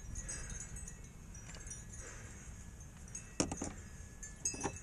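Small metal parts clinking and jingling, with a sharp clink a little past three seconds in and another near the end.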